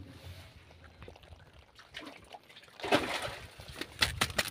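Seawater splashing as live spiny lobsters are handled over wet plastic crates: a short burst of splashing about three seconds in, then a quick run of clicks and knocks near the end.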